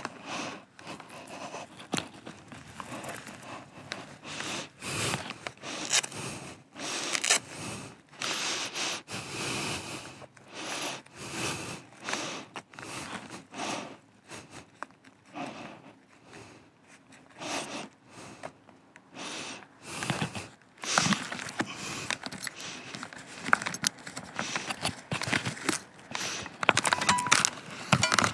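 Rustling and scraping of leather gloves and jacket handled close to the microphone, in irregular bursts that grow busier in the last third.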